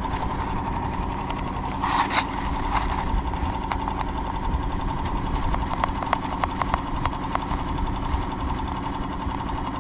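Small outboard motor running steadily at trolling speed, with a knock about two seconds in and a run of light clicks from handling the rod and reel.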